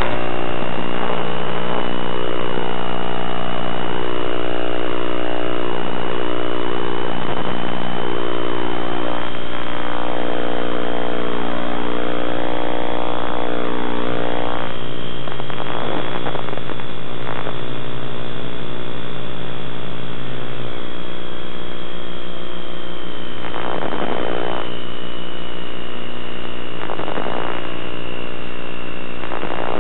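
RC model airplane's motor and propeller heard from on board in flight: a steady drone with a high whine that shifts a little in pitch as the throttle changes.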